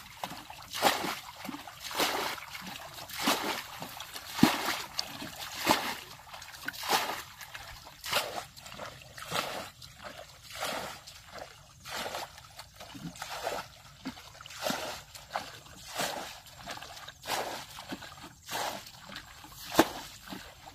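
Water splashing and sloshing in a regular rhythm, one splash about every second, as if scooped or stirred by hand.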